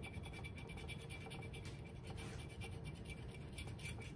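Fingernail scratching the coating off a paper lottery scratch-off ticket on a tabletop: rapid, faint repeated scrapes.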